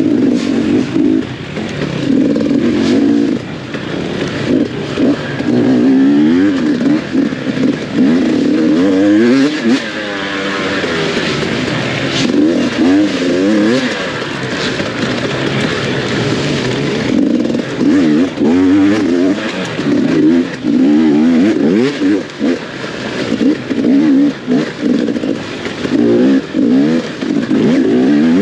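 Off-road dirt bike engine revving hard and working through the gears, its pitch climbing and dropping again and again as the throttle opens and closes.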